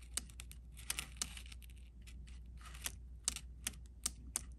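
3-port electronic boost control solenoid clicking irregularly, several sharp clicks a second, as its wire terminals make contact on a 12-volt battery. The solenoid switching on shows that both wires are crimped and connected right.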